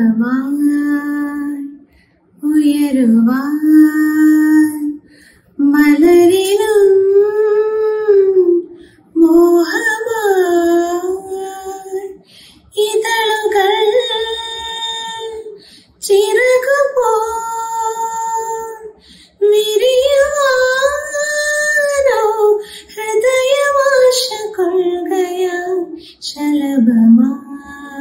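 A woman singing a slow melody with no accompaniment, in phrases of two or three seconds with short breaths between, the long held notes bending and sliding in pitch.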